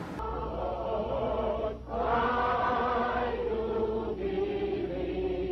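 A group of voices singing together in long held notes, phrase after phrase with short breaks between them, from an old, dull-sounding recording with a low hum beneath.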